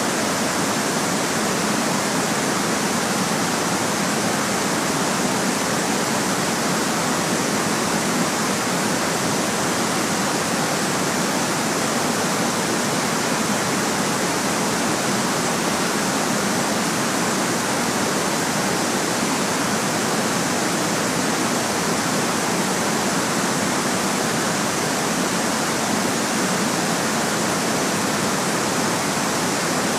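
Steady white noise: an even, unchanging hiss with little deep bass.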